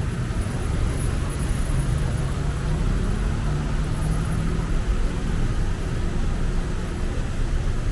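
Steady low rumble of city street traffic, with car engines running close by, a faint engine hum rising above it around the middle.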